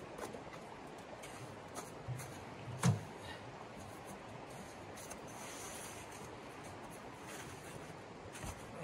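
Shallow creek running steadily, with scattered knocks and clicks of camp gear being handled; the loudest is a sharp knock about three seconds in, as a small metal wood stove is set down.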